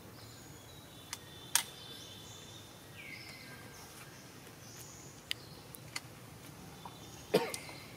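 Outdoor ambience with faint, brief bird chirps and a few sharp clicks. The loudest clicks come about a second and a half in and again near the end.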